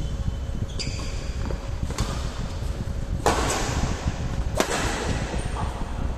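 Badminton rally: rackets striking the shuttlecock in sharp cracks a second or so apart, the two loudest about three and four and a half seconds in, each with a brief ring in the hall, over a steady low rumble.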